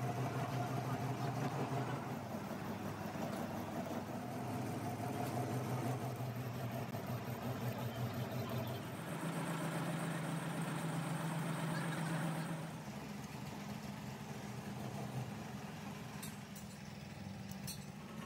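Metal lathe running, turning a steel truck shaft part against the cutting tool. A steady hum that changes pitch about nine seconds in and drops in level about thirteen seconds in, with a few sharp clicks near the end.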